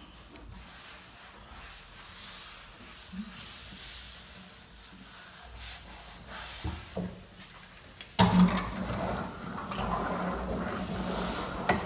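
Faint rubbing of hands smoothing a laminate sheet, then about eight seconds in a sudden knock and a steady rolling rumble as a hand laminate roller is pressed across the laminate to bond it to the door.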